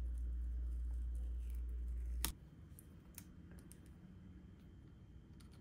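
Light clicks and taps on a laptop while its speakers are being replaced. A low hum runs underneath and stops abruptly with a sharp click about two seconds in; faint scattered clicks follow.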